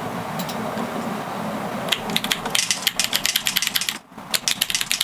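Rapid typing on a Roccat Vulcan 120 AIMO mechanical keyboard with the software's typewriter sound effect switched on, so that each keystroke comes with a simulated typewriter clack. The fast run of clicks starts about two seconds in, with a brief pause just before the end.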